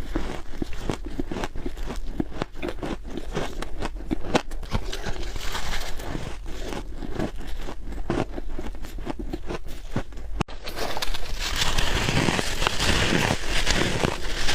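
Close-up biting and chewing of soft freezer frost: dense, rapid crunches. A momentary break comes a little over ten seconds in, after which the crunching is louder.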